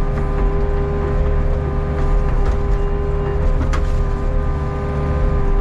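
Hitachi Zaxis 48U mini excavator running steadily while the boom and bucket work soil: a steady engine drone with a steady whine on top, and a couple of short clicks near the middle.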